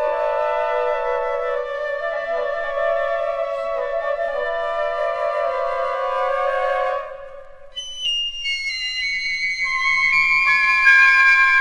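Flute choir playing slow, sustained chords. A low cluster of held notes fades away about seven seconds in. After a short lull, higher notes enter one after another and build into a bright held chord.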